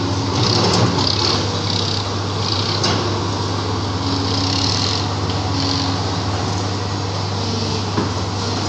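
JCB 205 tracked excavator's diesel engine running steadily under working load as the bucket digs into rubble, with a hiss that swells and fades and a few short knocks of the bucket against broken concrete.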